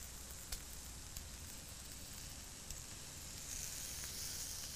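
Oiled, skewered shrimp sizzling on a hot flat-top griddle: a steady hiss with a few small pops, growing a little louder about three and a half seconds in.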